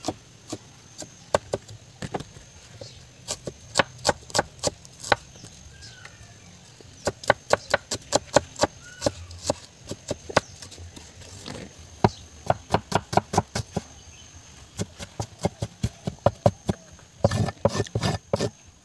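Steel cleaver chopping small red onions on a wooden chopping board: a string of sharp knocks of blade on wood, irregular, in quick runs of several a second in places.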